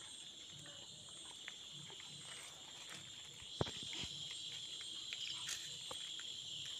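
Night insects trilling in a steady high drone, with low pulsing animal calls underneath and a single sharp knock about three and a half seconds in.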